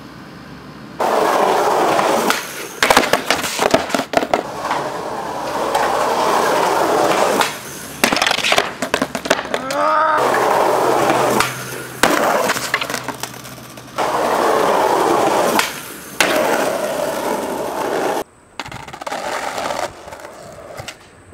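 Skateboard wheels rolling on concrete in several loud stretches, broken by sharp cracks and slaps of the board being popped and landing.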